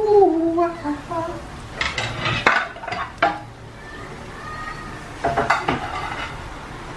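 Yeast-dough beignets deep-frying in a pan of oil, sizzling steadily. A metal utensil clinks and scrapes against the pan in two bouts, about two seconds in and again about five seconds in, as the beignets are turned.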